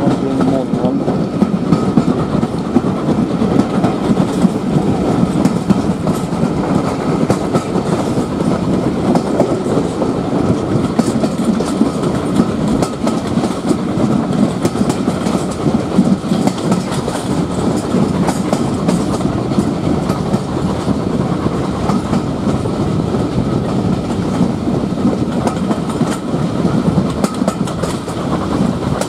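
Steam-hauled passenger train running, heard from inside a coach: a steady rumble of wheels on the rails with clickety-clack from the track, behind LMS Jubilee 4-6-0 no. 45596 Bahamas.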